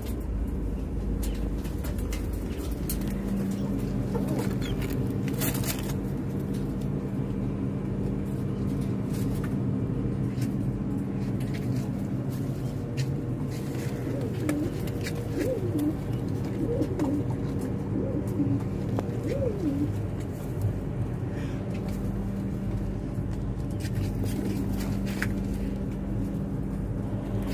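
Domestic pigeons cooing, a run of rising-and-falling coos about halfway through, over a steady low hum with scattered light clicks.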